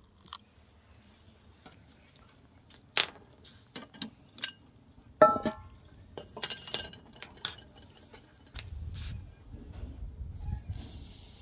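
Dishes and utensils clinking and knocking while food is prepared: a run of separate clinks, the loudest a ringing clink about five seconds in. A low rumble comes in near the end.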